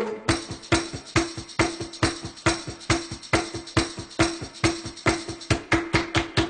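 Background pop music in an instrumental stretch without singing: a steady, even percussion beat over a held low note.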